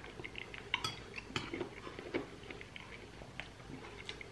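Metal spoon clinking and scraping against a glass bowl of bean soup, a few sharp clinks among quieter sounds of eating.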